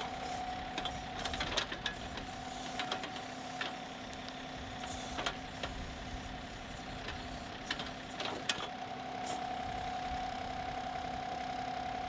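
John Deere 2038R compact tractor's diesel engine running with a steady hum while its backhoe bucket claws at stump roots, with scattered sharp clicks and knocks from the bucket and linkage. A steady whine gets louder in the last few seconds.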